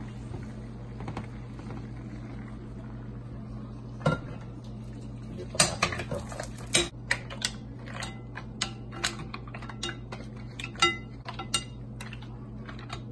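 Cooked mussels tipped from a stainless steel frying pan into a ceramic bowl: a single knock about four seconds in, then a run of sharp clinks and clatters of shells against pan and bowl for about six seconds, over a steady low hum.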